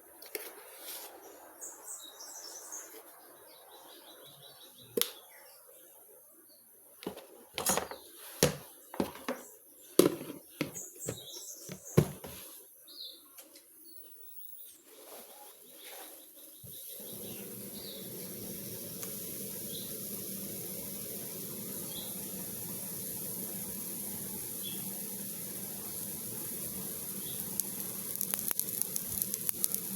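Birds chirping with a series of sharp knocks and clicks. About halfway through, a steady sizzling hiss comes in, the sound of food frying in a pan, and carries on.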